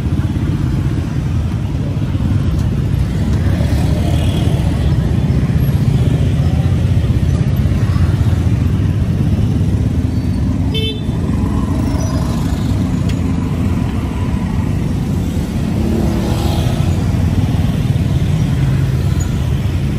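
Busy street traffic: a steady low rumble of passing cars and motorbikes, with short horn toots about halfway through and again a few seconds later.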